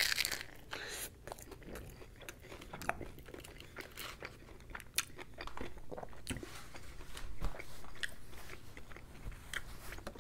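Close-miked bite into a battered deep-fried chicken ball dipped in sauce, loudest right at the start, followed by steady chewing with irregular crunches and wet mouth clicks.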